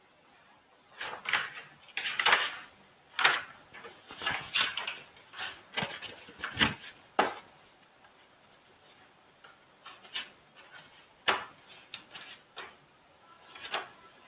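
Irregular short scratchy strokes and taps, like writing on a board, bunched in the first half and sparser later.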